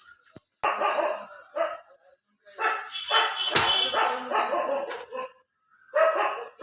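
A dog barking repeatedly in short bouts with brief pauses between them.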